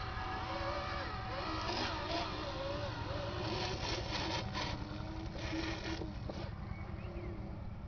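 Radio-controlled toy dump truck driving over dirt and loose gravel, its small electric motor and gears running, with a few short crunches from the wheels. It fades as the truck moves away.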